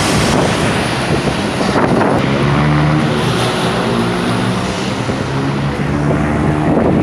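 A motor vehicle's engine running close by, a steady low drone over a loud rush of traffic noise.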